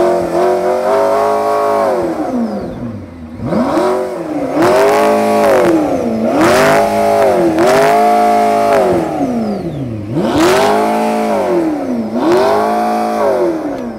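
McLaren P1's twin-turbo V8 being revved hard in repeated blips: the engine note climbs, holds briefly and falls back about six times, loud throughout.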